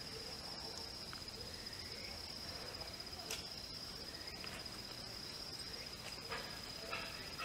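An insect trilling steadily at one high, even pitch, with a few short clicks about three, six and seven seconds in.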